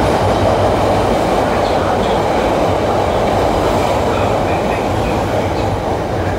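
CTA Blue Line subway train running past the platform inside an underground station, a steady rumble and rattle of wheels on rail that eases slightly toward the end.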